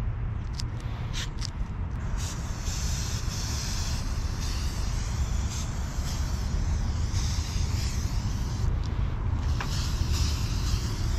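Aerosol spray paint cans hissing in repeated bursts with short pauses, over a steady low rumble.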